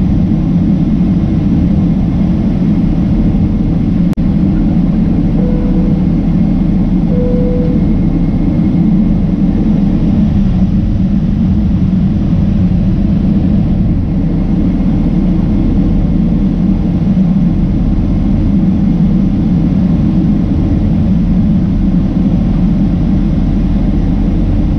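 Boeing 767-300ER engine and airflow noise heard inside the passenger cabin beside the wing: a loud, steady low rumble that does not change.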